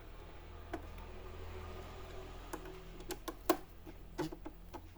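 Scattered light clicks and taps of a screwdriver and plastic casing parts as screws are driven and tightened into the stand of an HP all-in-one PC. The loudest click comes about three and a half seconds in, over a faint low hum.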